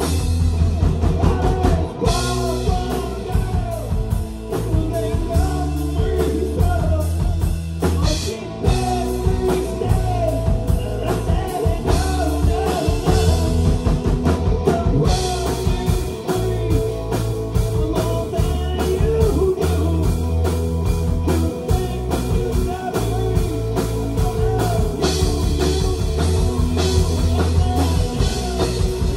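Live rock band playing, with drum kit and electric guitar over a steady beat.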